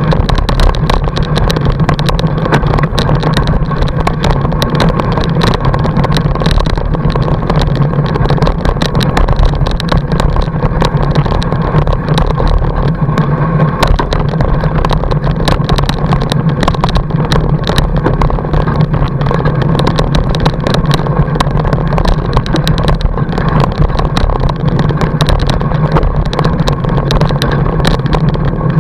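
Fat-bike tyre rolling over packed snow, picked up by a camera mounted on the fork: a steady, loud rumble with constant small rattling clicks from the bike and mount.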